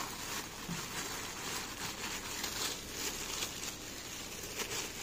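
Clear plastic bag crinkling and rustling in irregular bursts as a pair of binoculars is worked out of it by hand.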